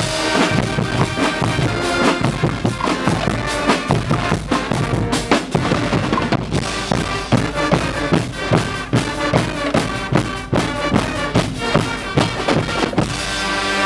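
Guggenmusik carnival band playing loud, rhythmic brass (sousaphones, trumpets, trombones, saxophones) over marching snare and bass drums and cymbals. Near the end the drumming stops and the brass holds one long chord.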